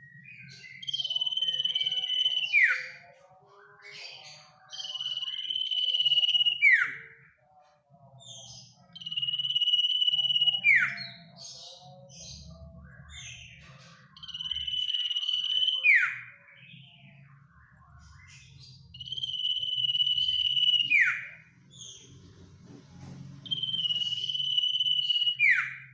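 Common iora (sirtu/cipoh) singing its long drawn-out whistle six times, about once every four seconds. Each whistle holds one steady high note for about two seconds, then drops in a quick falling note.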